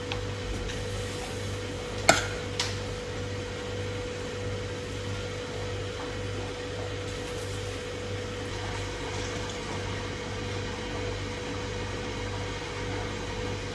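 A steady low hum with a faint steady tone over it, and two sharp knocks about half a second apart some two seconds in.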